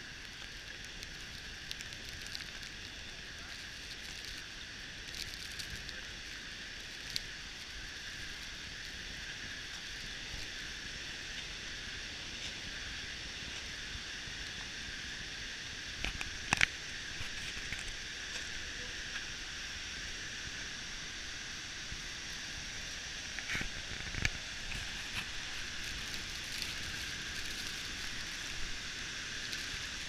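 Steady hiss of a large waterfall heard up close in its spray, with light crackling and scattered sharp clicks of spray droplets striking the camera. The loudest is a pair of clicks about two-thirds of the way in.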